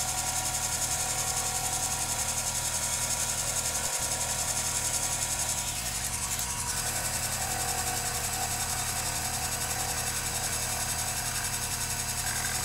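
Small metal lathe running steadily under power feed, its cutting tool turning down the welded steel receiver of a .22 rifle. Sped up four times, the motor and gear whine comes out high and steady, with its tones shifting slightly about six seconds in.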